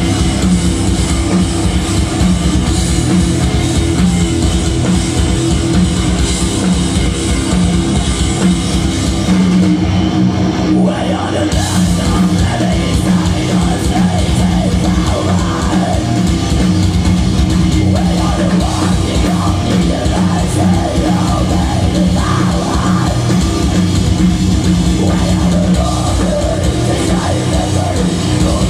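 A heavy metal band playing live and loud: distorted electric guitars, bass and a drum kit. The top end thins out briefly around ten seconds in, and then the full band comes back.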